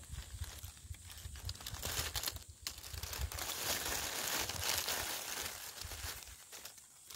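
Dry fallen leaves rustling and crackling as someone moves and reaches through the leaf litter. The rustling builds after a second or so, is loudest in the middle, and dies down near the end.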